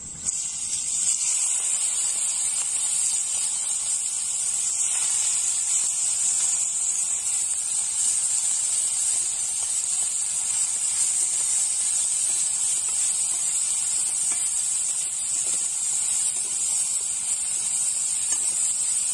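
Prawns sizzling in hot oil in a frying pan: a loud, steady, high hiss that starts suddenly as they are tipped into the oil, just after the start, and holds without letting up.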